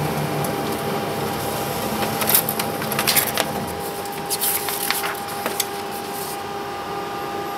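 HP LaserJet 9050dn laser printer running while printing a supplies status page, a steady mechanical hum with a constant high tone. Paper rustles and clicks several times a few seconds in as sheets are handled in the output tray.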